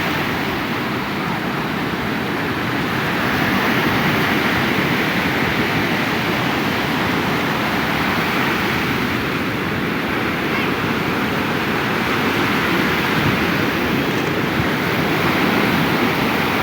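Surf breaking on a beach: a steady, loud rush of waves, swelling and easing slightly.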